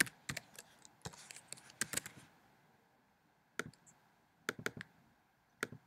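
Scattered keystrokes on a computer keyboard: a handful of separate taps in the first two seconds, then a pause and a few more single clicks.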